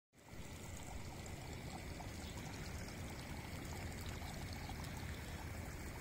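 Water pouring steadily and heavily into a farm pond, a constant rushing, splashing flow.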